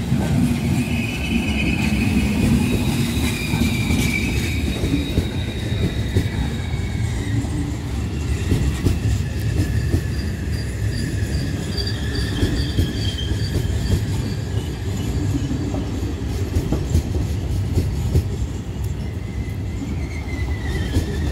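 Trenitalia regional passenger train of nB coaches, led by a control car, pulling into a station: a steady rumble of wheels on the rails with repeated clicks over the rail joints. High-pitched squealing from the wheels and brakes comes and goes as it slows, with a falling squeal near the end.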